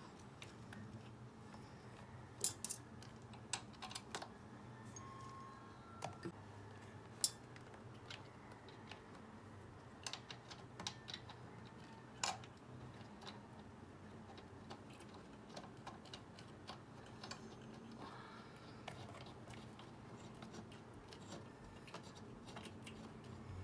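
Scattered light metallic clicks and ticks of hand tools and bolts as engine-mount bolts are turned in, over a faint steady low hum.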